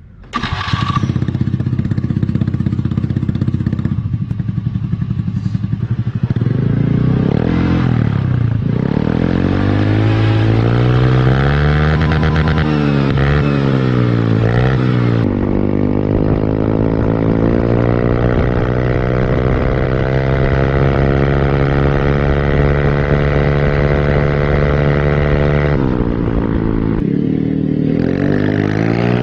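Honda Beat automatic scooter's stock single-cylinder engine breathing through a DOS aftermarket racing exhaust. It idles steadily at first, then is revved up and down in several blips. Later it runs at a steady pitch, with the revs dropping and rising again near the end as the scooter is ridden.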